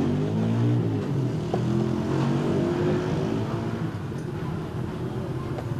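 A motor vehicle engine passing in the street, its pitch gliding up and down and slowly fading.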